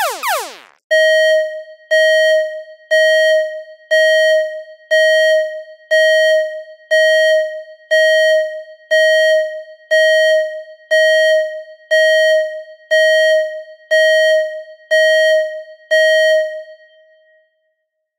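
An electronic alarm chime: one bell-like tone struck about once a second, about sixteen times, the last one ringing out. It opens with the end of a rapidly repeating falling electronic sweep from the previous alarm effect.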